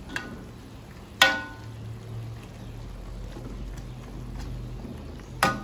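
Metal ladle knocking against a wok while stirring, with two loud ringing clangs, one about a second in and one near the end, and a lighter click just before the first. A low steady hum runs underneath.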